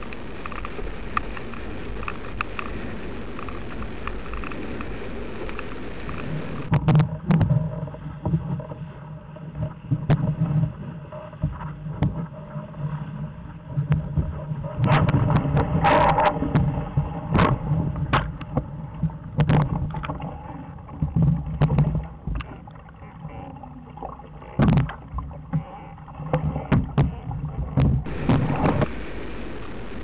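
Rush of wind and water around a Laser dinghy sailing fast in strong gusts. For the first six seconds or so it is a steady rush. From about seven seconds in it turns muffled, with a low rumble and irregular loud knocks and buffets, and the steady rush returns near the end.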